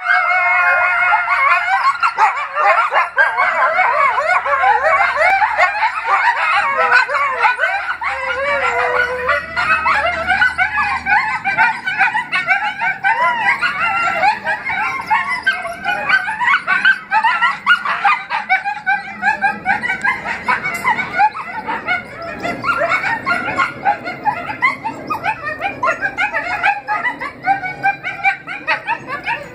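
A group of coyotes howling and yipping together in a chorus: many wavering calls that rise and fall and overlap, with longer howls in the first part giving way to quicker, choppier yips.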